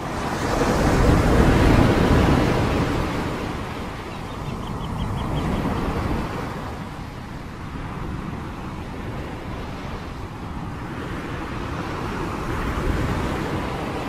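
Storm noise of gusting wind and rushing water, with wind buffeting the microphone. The roar swells about a second in, then rises and falls with the gusts.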